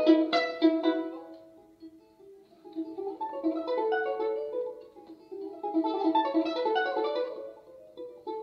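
Balalaika music, a concert piece on Russian folk-song themes: quick runs of plucked notes that fade about a second in, then build up again twice before easing off near the end.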